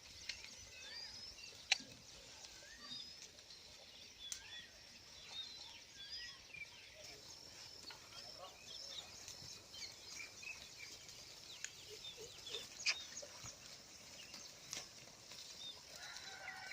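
Small birds chirping and whistling in quick, repeated short calls, with a few sharp clicks in between.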